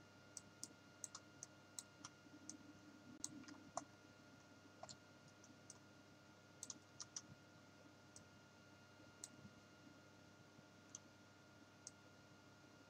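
Faint, irregular computer mouse clicks, about twenty, bunched in places, during mouse sculpting work in Blender, over a low steady electrical hum.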